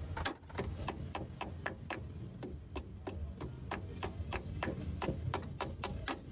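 Rapid, even clicking, about four clicks a second, from the starter solenoid of a Mitsubishi 4D56 diesel as the starter fails to turn the engine over. The engine will not rotate since a new camshaft was fitted.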